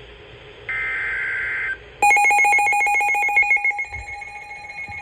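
Weather radio receiving a severe thunderstorm warning: two roughly one-second bursts of shrill digital SAME header tones. About two seconds in, a loud, rapidly pulsing alert tone starts and becomes steadier near the end.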